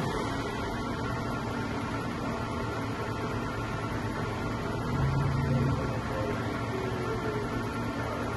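Takisawa LA 250 CNC lathe running: a steady electrical hum and servo whine as the tool turret and slides move, with a brief swell in a low hum about five seconds in.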